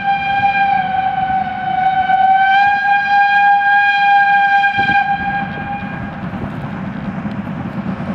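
Steam locomotive whistle blowing one long steady note that stops about six seconds in, over the low rumble of the locomotive working a freight train. The rumble carries on after the whistle.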